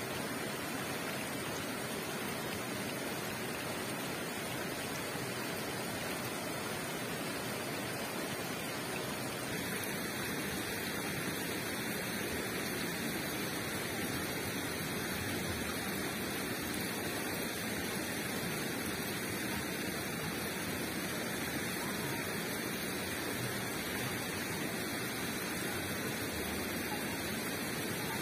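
Steady rush of a rocky river and waterfall, with no break. The tone of the rush shifts slightly about ten seconds in.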